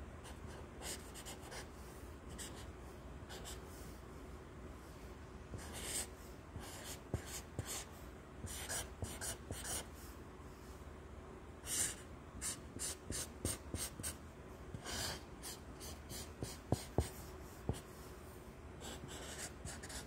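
Felt tip of a Sharpie marker scratching across lined notebook paper in quick short strokes, in bursts with pauses between them. Two sharp clicks near the end are the loudest sounds.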